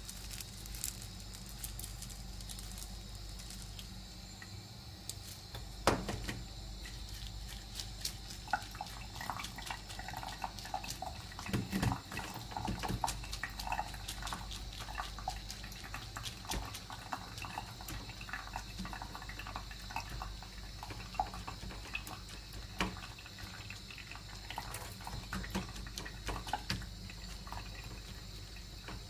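Whole wheat grains being washed by hand in a plant-pot saucer: tap water running onto the grains, and fingers stirring and rubbing the wet grains, with small splashes and many small crackling clicks.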